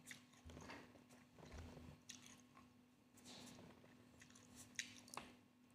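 Faint chewing and biting of fresh cherries, with a few soft mouth clicks.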